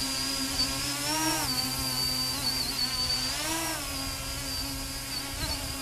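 Mini tricopter's electric motors and propellers buzzing steadily in a hover, the pitch rising briefly twice, about a second in and again about three and a half seconds in, as the motors speed up.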